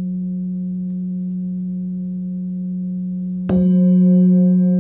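A 19.7 cm hand-hammered Nepalese singing bowl, tuned to F sharp (about 181 Hz), ringing on with a steady hum and overtones. About three and a half seconds in it is struck again, and the ring swells louder with brighter upper overtones.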